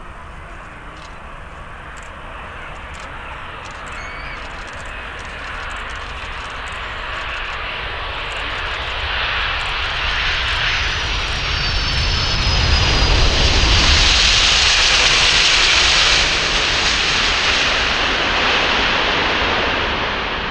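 Boeing 747-400F freighter landing: the noise of its four jet engines builds steadily as it comes in, with a thin falling whine as it passes. The noise peaks about two thirds of the way through, then eases slightly.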